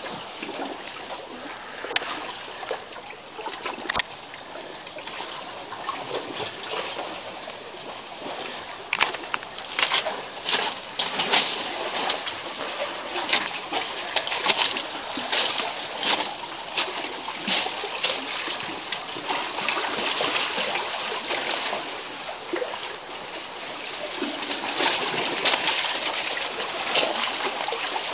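Sea water sloshing and splashing among rocks and pebbles, with many short sharp clicks and clatters, thickest in the middle and again near the end.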